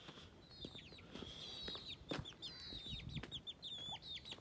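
A chick peeping over and over: quick, thin, high cheeps that drop in pitch, several a second, with a few soft footsteps on the dirt.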